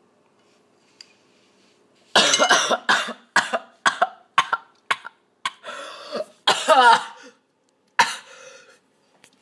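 A young man coughing hard in a quick run of harsh bursts, with a hoarse cry or two in between, after snorting cocoa powder and sugar up a straw. The coughing breaks out about two seconds in.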